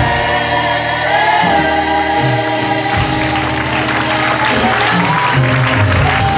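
Gospel choir singing with music, sustained chords under a wavering held melody; a noisy hiss of applause or cheering builds up in the second half.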